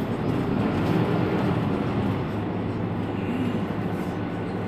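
Mercedes-Benz Citaro C2 city bus idling at a stop, its rear-mounted engine running steadily.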